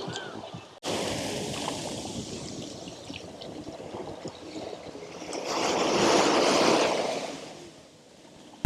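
Surf washing on a sandy beach. One larger wave swells up about five and a half seconds in and fades away about two seconds later. The sound drops out briefly just under a second in.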